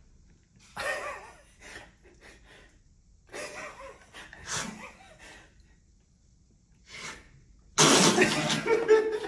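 Several short bursts of a person's non-speech vocal sounds, the last one louder and longer near the end.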